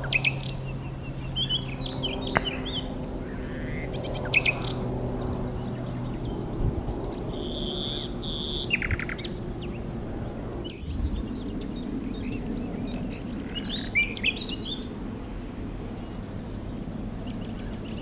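Common nightingale singing: short, varied phrases of whistles and chirps with pauses between, including a held whistled note and then a fast rattling stutter about eight seconds in.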